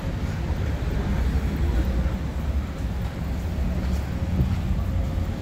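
Steady low rumble of downtown street traffic, with a faint steady hum above it.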